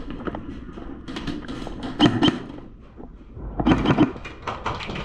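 A run of sharp clicks and knocks: a loud cluster about two seconds in, another near four seconds, and a quicker string of ticks near the end.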